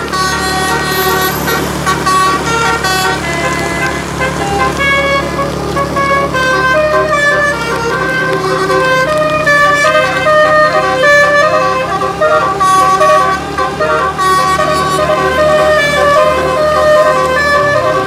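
A tour bus's multi-tone 'telolet' basuri horn playing a long melody of quick, stepped notes, with a steady low hum underneath.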